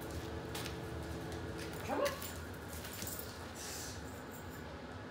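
A dog gives one short, rising whine about two seconds in, over a faint steady hum.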